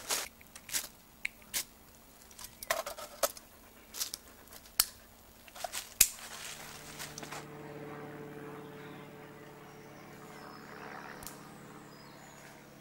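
Camping gear being handled and set down on a canvas groundsheet: a string of light knocks and clinks of metal and glass, the sharpest about six seconds in. After that a steady low hum with several tones holds on underneath.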